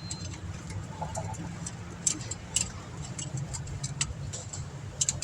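Light metallic clicks and taps at an irregular pace, from tools and brake parts being handled during a brake pad change, over a steady low hum.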